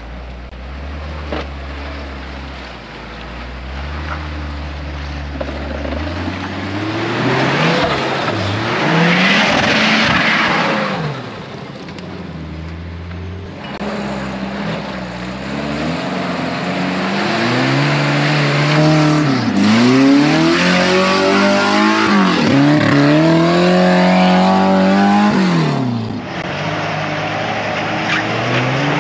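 Four-wheel-drive engines revving hard and repeatedly as they climb a steep, rutted mud track, the pitch rising and falling with each burst of throttle. About eight seconds in there is a rush of noise. In the second half the revving is loudest and belongs to a Nissan Patrol.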